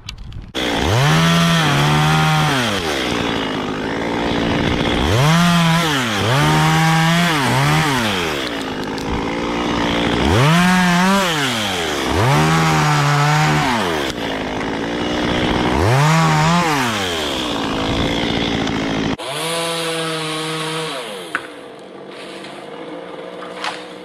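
Two-stroke chainsaw revving up to full speed, holding and dropping back, about four times over, as it cuts into wood. For the last few seconds it runs lower and more steadily.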